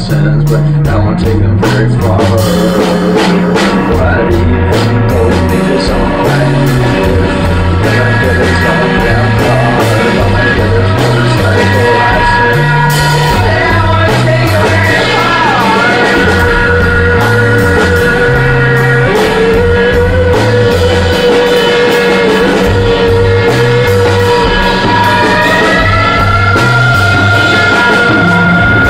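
Rock band improvising live in a rehearsal room, with drums and a pulsing low line under long, held sung notes. The vocals are re-amped through a Leslie rotating speaker cabinet, and the room-miked vocals bleed over the drums.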